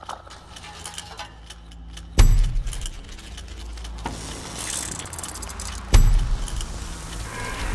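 Sound-design soundtrack of mechanical sounds: fine clicking and metallic jangling, with two deep hits about two and six seconds in, each trailing off in a low rumble.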